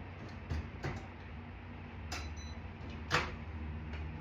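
A few light clicks and knocks, the sharpest about three seconds in, over a low steady hum.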